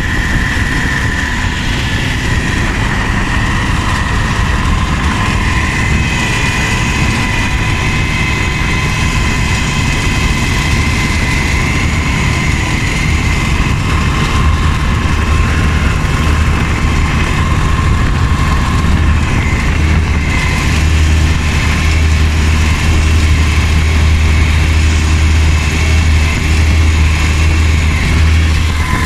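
22 hp Predator V-twin engine on a Mud-Skipper surface-drive mud motor, running steadily under load as the boat moves across the water. Its low drone grows somewhat louder about two-thirds of the way through.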